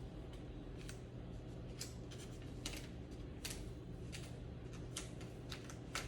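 Scattered faint clicks and taps, irregular, over a low steady hum.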